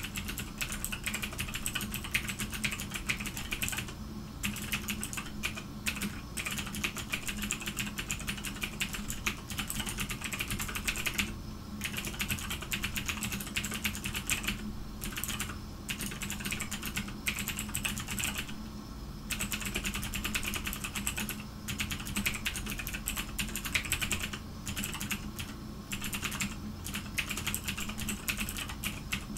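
Fast typing on a computer keyboard, in runs of rapid key clicks broken by short pauses, over a steady low hum.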